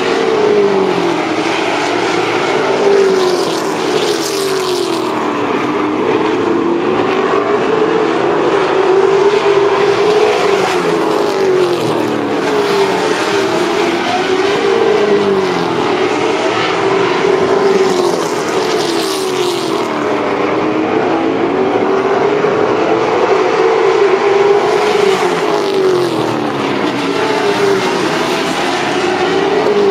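A pack of late model stock cars racing, their V8 engines overlapping and rising and falling in pitch lap after lap.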